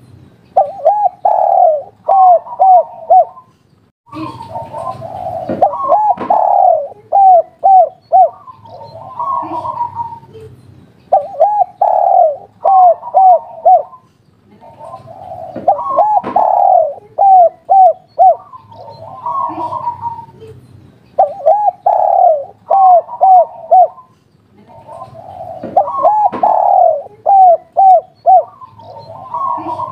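Spotted dove (tekukur) cooing its 'kuk 3' song: about six phrases, roughly one every five seconds, each a rough rising lead-in, then a long coo and a quick run of shorter coos.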